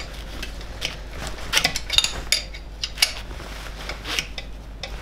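Scattered light metallic clinks and knocks of a lever bar and tools against the engine and dynamo bracket, as the dynamo is levered over to tension the fan belt; a quick cluster of clinks comes about two seconds in.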